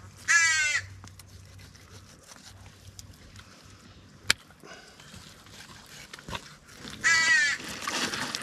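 A bird's harsh call, heard twice: once just after the start and again about seven seconds in. A single sharp click comes a little past four seconds.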